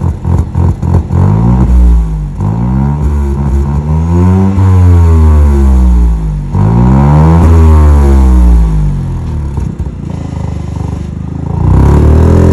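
Geely Coolray's 1.5-litre turbocharged engine revving through a stock muffler whose inside has been rebuilt for a louder note. A few quick throttle blips come first, then two long revs that rise and fall. It settles lower before another rev starts near the end.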